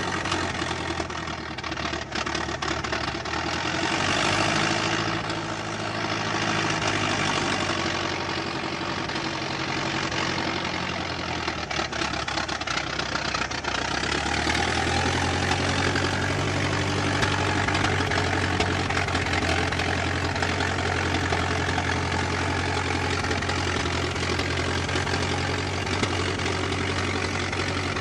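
Old car engine running, swelling up and down a few times in the first half, then settling into a steady idle.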